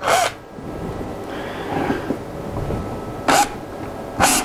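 Cordless drill driving wood screws through an oak board into an MDF waste sheet, run in a few short spurts of the trigger.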